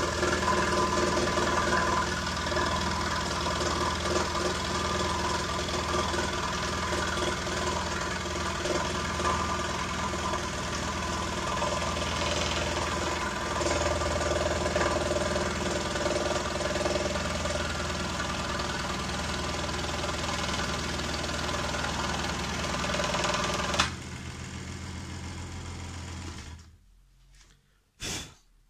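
Electric scroll saw running steadily with its stock pin-end straight blade stroking up and down through a wooden block. About 24 seconds in a click as it is switched off, and the motor runs down over two or three seconds and stops.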